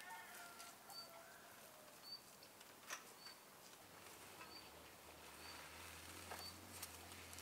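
A bird chirping faintly, one short high note about once a second, with a few soft clicks.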